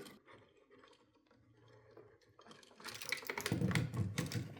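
Small clicks and rustling of hands fitting the line wire to the dimmer switch's terminal. The clicking is faint at first and grows busier and louder in the second half.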